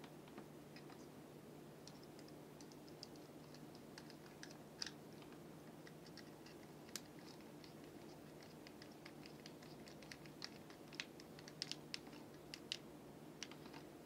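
Faint scattered clicks and light taps of a screwdriver and copper wires against a plastic water heater switch plate as its brass terminal screws are worked, more of them in the second half, over a low steady hum.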